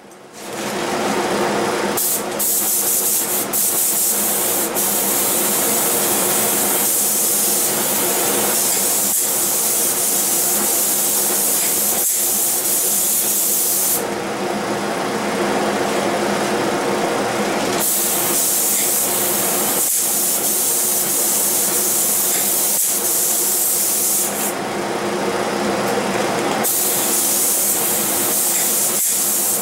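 Spray gun hissing steadily as finish is sprayed, over a steady motor hum from the air supply. The hiss stops briefly about halfway through and again near the end, when the trigger is let off, while the hum carries on.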